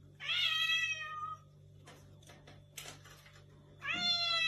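A cat meowing twice: two long, high meows, each falling slightly in pitch. The first comes just after the start and the second begins near the end.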